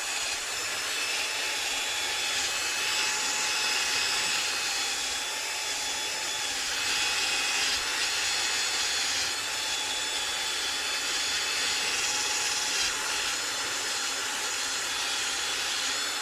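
Electric drill spinning a polishing pad loaded with compound against a guitar neck's finish, buffing it to a gloss: a steady whine with hiss, wavering slightly in level, that cuts off suddenly at the end.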